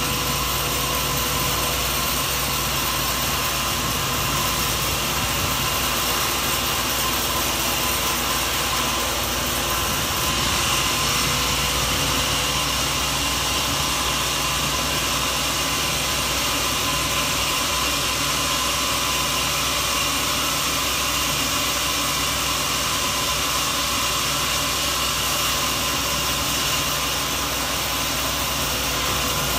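Sawmill machinery running steadily: a loud, even mechanical drone with a few fixed steady tones and no breaks or changes in level.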